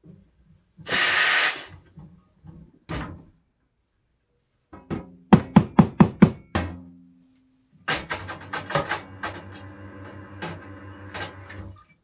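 A short, loud burst of steam hissing from the Rocket R58 V2's steam wand about a second in. Near the middle come about six sharp knocks in quick succession with a low ring, as a milk pitcher is knocked on the counter. Near the end there is a few seconds of clattering clicks over a low hum.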